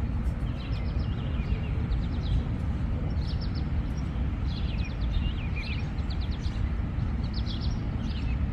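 A bird singing short chirping phrases over and over, about one a second, over a steady low outdoor rumble.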